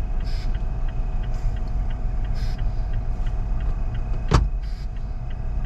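Car driving, heard from inside the cabin: a steady low rumble of engine and tyres on the road, with a single sharp click about four seconds in.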